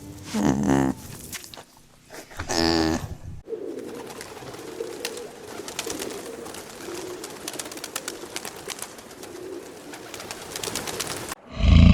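Two short animal calls in the first three seconds, then birds cooing softly in low, wavering phrases for about eight seconds. Near the end a loud engine cuts in abruptly.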